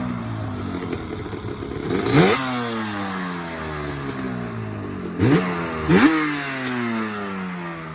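Yamaha Banshee's twin-cylinder two-stroke engine being blipped: the revs shoot up sharply once about two seconds in, then twice in quick succession past the middle, each time winding slowly back down toward idle.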